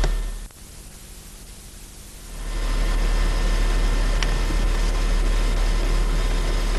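Steady hiss with a low steady hum, the background noise of an old analogue videotape soundtrack. It drops away about half a second in and comes back about two seconds later.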